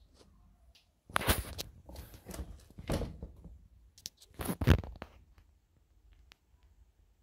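Handling noise as a sneaker is turned over and moved about: short scraping, rustling scuffs, loudest about a second in, near three seconds and about four and a half seconds in, then quiet.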